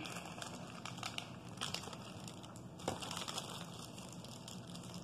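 Clear plastic bag crinkling as it is handled and opened, with irregular small crackles and one sharper click about three seconds in.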